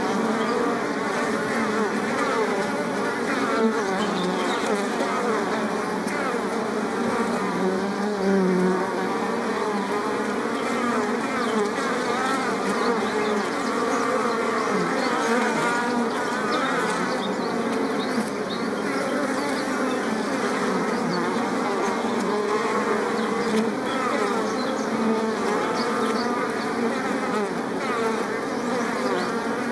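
Many bees buzzing together in a dense, continuous hum. The overlapping buzzes waver up and down in pitch as individual bees come and go.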